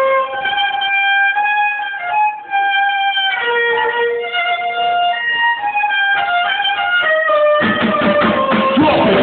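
A violin plays a solo melody line of held and moving notes. About three-quarters of the way through, the full band comes in loudly under it, with bass and guitar.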